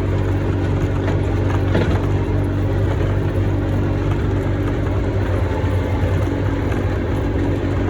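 A vehicle's engine running steadily with a low, even hum, along with the rumble of the vehicle moving over farm ground; a short knock about two seconds in.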